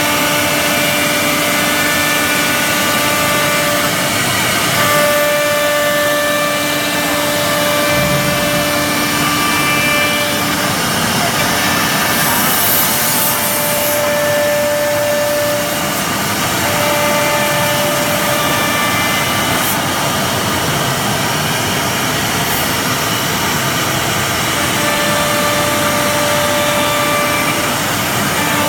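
CNC wood router running and cutting wood: a steady loud cutting noise under a spindle whine whose tones come and go as the load changes. A brief high hiss about twelve seconds in.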